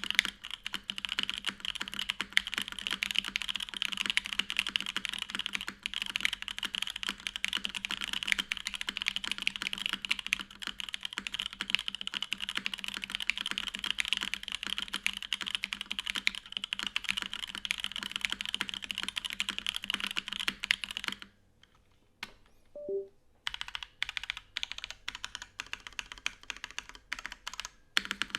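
Custom mechanical keyboard with unlubed stock Popu linear switches on an aluminum plate and GMK keycaps, being typed on quickly and continuously. The typing stops about 21 seconds in, then resumes after a two-second pause as more spaced-out keystrokes.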